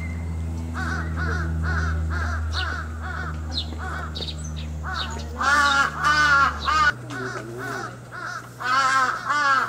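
Crows cawing over and over, a run of about three caws a second, with louder caws in the middle and near the end. A steady low hum underneath stops about seven seconds in.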